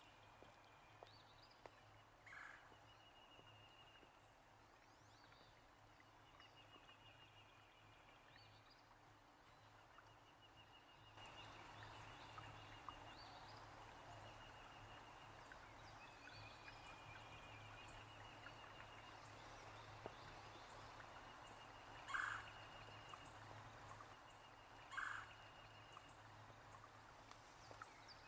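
Faint bird calls: repeated high trilled calls, with a few short, louder calls near the end, over a low background hiss that steps up about eleven seconds in.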